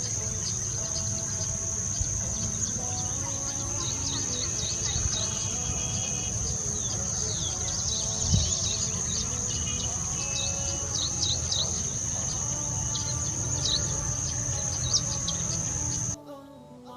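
Many small birds chirping in short, quick calls over a steady high-pitched insect drone and a low rumble. Near the end it all cuts off suddenly, leaving only quiet music.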